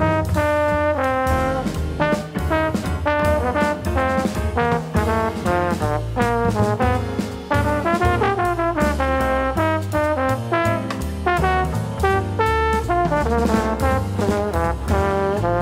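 Bebop jazz: a fast, pitched lead line over a walking bass and drums.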